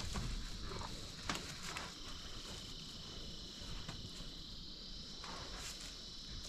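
Insects chirring in one steady, high, even tone, with a few faint clicks or knocks, one of them about a second in.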